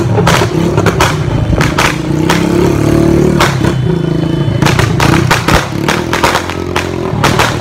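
Firecrackers going off in a string of irregular sharp cracks, over a motorcycle engine running close by whose pitch swells about three seconds in.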